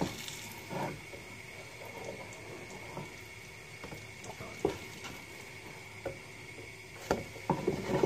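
Pancake batter sizzling in an oiled frying pan, a steady soft hiss, with a few light knocks.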